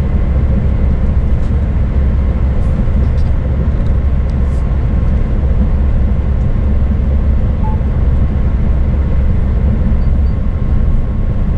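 Scania S500 truck cruising on the highway: a steady low rumble of engine and road noise.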